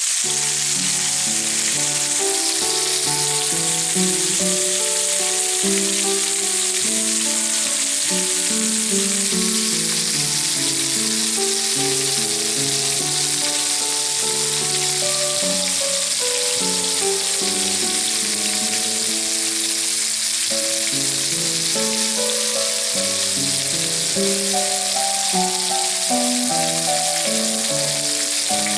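Lamb chops frying, a steady sizzle throughout, with background music playing a melody of held notes over it.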